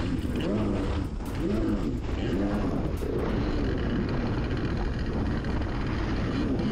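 Kawasaki 650SX two-stroke twin engine of a stand-up jet ski running hard, its pitch rising and falling again and again, the swings quicker toward the end. Wind and water spray rush steadily underneath.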